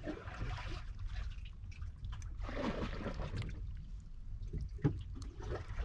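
Wet handling noises as a hook is worked out of a freshly caught fish's mouth, with water trickling and lapping at the boat and a steady low rumble underneath. A louder rustling, squelching patch comes about halfway through, and a few sharp clicks come near the end.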